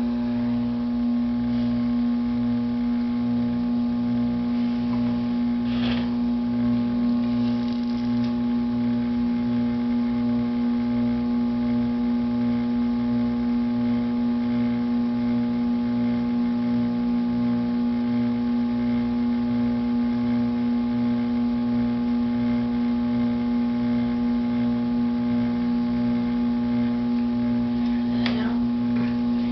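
Electric potter's wheel running at steady speed while clay is shaped on it: a constant motor hum with a low, regular pulsing underneath and a few faint ticks.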